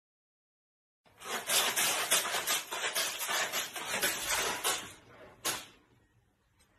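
A cat digging hard in a plastic litter box, its paws raking stick-shaped pellet litter in a rapid scratchy rattle as pellets spill out. It starts about a second in, stops about five seconds in, and one last scrape follows.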